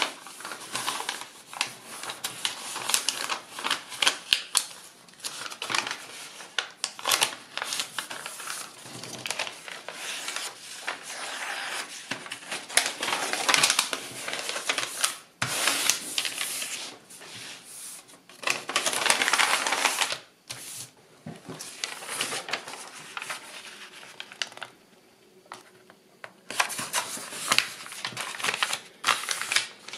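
Kraft paper rustling and crackling as it is folded and creased flat by hand, in irregular bursts with sharp crackles. A brief lull comes a few seconds before the end.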